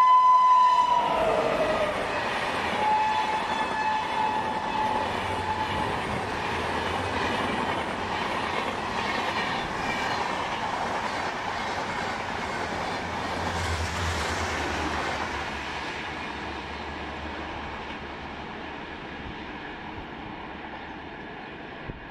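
Indian Railways electric locomotive's horn sounding as the train passes, its pitch dropping and cutting off about a second in. Then the long rake of double-decker coaches runs past, the rushing rail noise fading steadily over the last several seconds as the train recedes.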